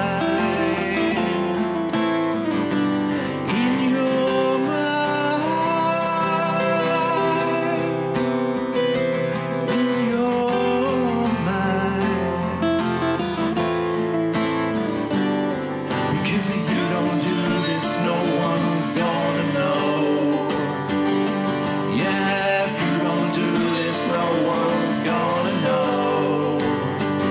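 Two steel-string acoustic guitars, a Takamine and a Crafter, strummed and picked together, with a man singing the song's melody over them.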